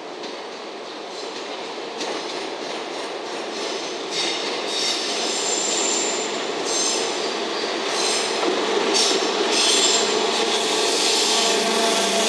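EF210 electric locomotive hauling a freight train, approaching and passing close by, growing steadily louder. Intermittent high squealing from the wheels on the curving track starts about four seconds in.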